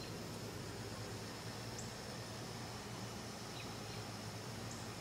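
Back-yard outdoor ambience: a steady high insect drone with a few short bird chirps, over a low steady hum.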